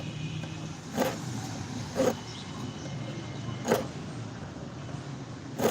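About five short, sharp knocks or clicks, roughly a second apart, over a steady low hum.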